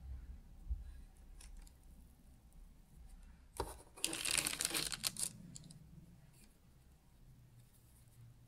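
Baking parchment on a tray crinkling and rustling under fingers for about a second near the middle, after a sharp click. Around it are soft handling sounds of cookie dough.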